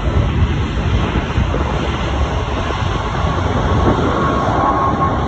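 Twin-engine wide-body jet airliner at takeoff thrust as it lifts off, its engines giving a loud, steady rumble. A high whine joins in about four seconds in.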